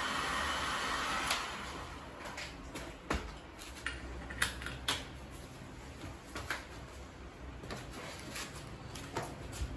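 Heat gun blowing on a stuck clutch hub nut, a steady hiss that fades out about a second and a half in. Scattered light clicks and knocks follow.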